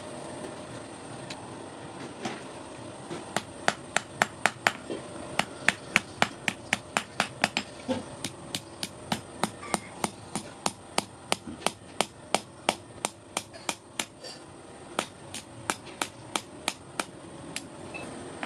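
Hand hammer striking iron on an anvil while forging an S hook: a long run of sharp, evenly paced blows, about three a second, starting a few seconds in and stopping near the end. A steady high whine runs underneath.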